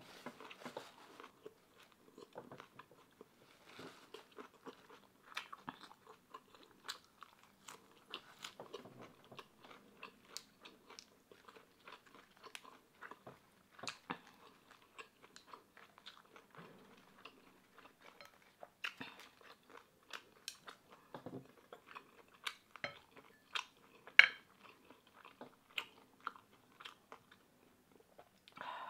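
Close-miked chewing of fried pork belly: irregular moist mouth clicks and small crunches. One sharper click stands out late on.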